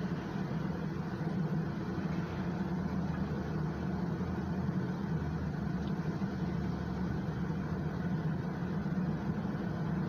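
Steady low hum inside a car's cabin with the ignition on, level throughout with no clicks or changes.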